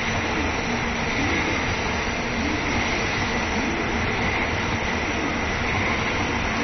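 N700 series Shinkansen train running slowly at the station: a steady rumble with a faint wavering hum and a higher hiss over it.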